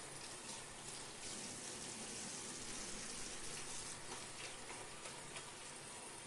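Water running steadily from a tap into a sink, an even splashing hiss with a few small ticks.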